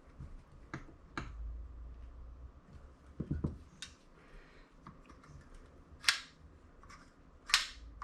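Small metal carburetor parts clicking and tapping as they are handled and fitted together during a carb rebuild. About half a dozen sharp clicks, the loudest two near the end, with a duller knock a few seconds in.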